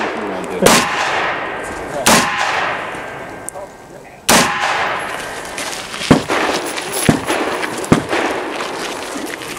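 A string of rifle shots from a competitor running a USPSA rifle stage: three heavy shots a second and a half to two seconds apart, each trailing off in a long echo, then a quicker run of sharp cracks in the second half.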